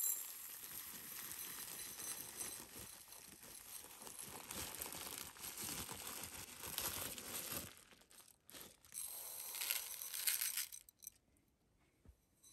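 Dry rice grains pouring from a plastic bag into a ceramic bowl, a steady rustling pour mixed with the crinkle of the plastic bag; it stops about eleven seconds in.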